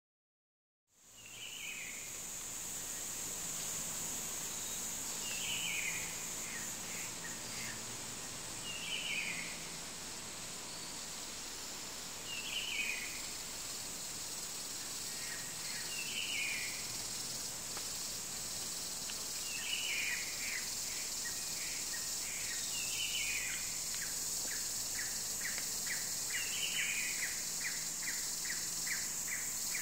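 Tropical forest ambience at dusk, fading in from silence about a second in: a steady high shrilling of insects, with a bird call of a short falling phrase repeated about every three and a half seconds. After each call comes a run of quick ticks at the same pitch, which grows longer and steadier toward the end, about three ticks a second.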